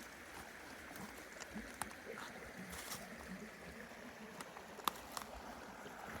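Small woodland creek flowing steadily, with a few sharp clicks and crackles over it, the loudest about five seconds in.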